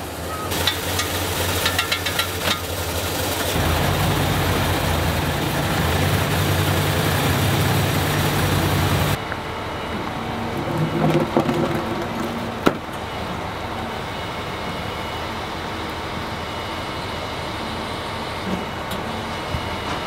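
Heavy diesel truck engine running steadily, louder and deeper for the first half, then cutting to a quieter steady running sound partway through. One sharp knock comes about two-thirds of the way in.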